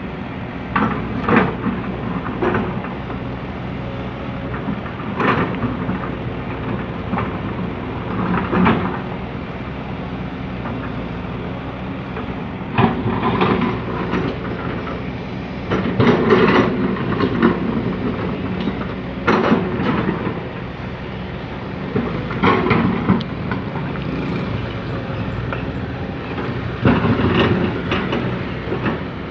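Komatsu PC200CE hydraulic excavator working soil: its diesel engine runs steadily under load, with louder short bursts of noise and clatter every few seconds as the bucket digs.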